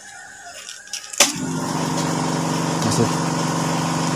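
Faint rustle of sandpaper being folded, then, about a second in, a sudden click as a motor or engine starts and runs steadily at a constant pitch, far louder than the handwork.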